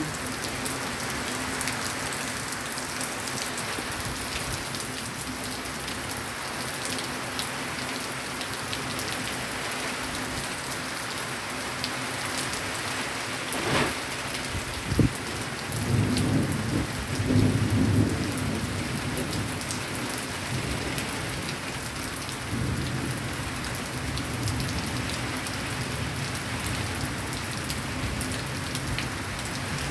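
Steady heavy rain pouring down. About halfway through there is a sharp crack, then a low rumble of thunder that lasts two or three seconds.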